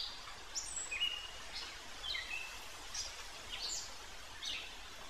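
Songbirds chirping: short, high whistled notes, some sliding up or down in pitch, about two a second over a steady background hiss.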